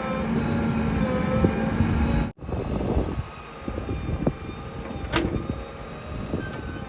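JCB 3DX backhoe loader's diesel engine running steadily, cut off abruptly about two seconds in; after that, quieter engine noise with scattered knocks and clicks.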